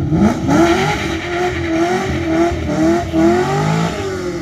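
Race sedan launching hard from a standing start with heavy wheelspin. The engine revs up sharply, then surges up and down several times near the top of its revs while the rear tyres spin and squeal, and the engine note drops near the end.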